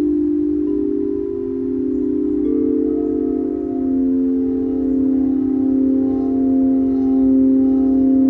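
Quartz crystal singing bowls, several played at once with mallets: sustained, overlapping pure tones that ring on, with new bowls joining in one after another over the first few seconds.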